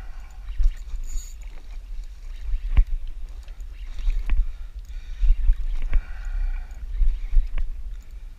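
Small fishing boat at sea: water slapping against the hull and wind rumbling on the microphone, with several sharp knocks.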